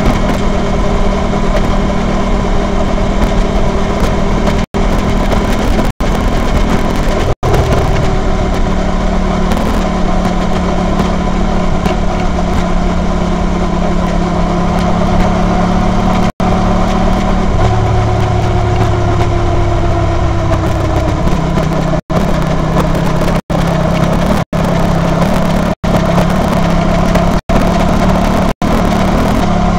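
Honda VT250F's V-twin engine running on the road, its note steady for long stretches, dropping for a few seconds past the middle as the bike slows, then rising again. The sound cuts out for a split second about ten times.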